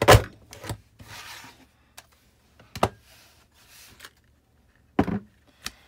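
A few sharp knocks and thumps on a tabletop, the loudest right at the start and more near the middle and end, with a short rustle of paper about a second in, as a glued paper rosette is pressed down under a glass bottle.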